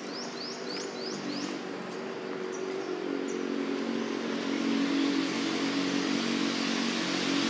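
A motor vehicle's engine running at a steady pitch, growing gradually louder over several seconds as it draws near. Near the start there is a quick run of about five short high chirps, each falling in pitch.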